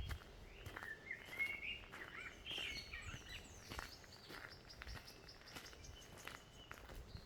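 Birds singing in the bush: a continuous run of short warbling, gliding chirps, with occasional faint clicks.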